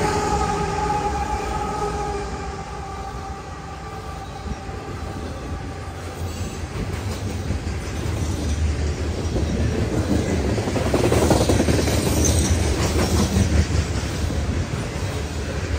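Freight train passing close by. The drone of the trailing diesel locomotives fades over the first few seconds, leaving the steady rumble and rattle of the coal gondolas rolling past, which grows louder in the second half.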